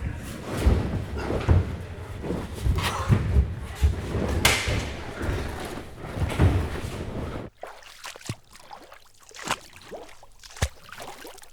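Footsteps: a run of heavy thudding steps over background noise, then an abrupt switch about seven and a half seconds in to a quieter recording with a few sparse, sharper steps.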